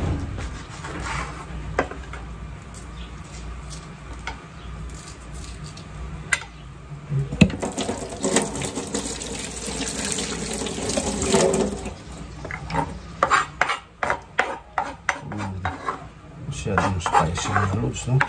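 Kitchen knife chopping green chilli on a wooden cutting board: a few scattered knocks early, then a run of quick chopping strokes over the last several seconds. In the middle, a steady rushing noise for a few seconds.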